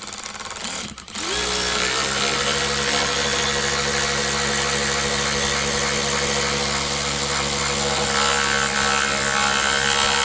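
Snap-on 14.4 V 3/8-inch high-torque cordless ratchet running. Its motor spins up just over a second in, then holds a steady whine at constant speed.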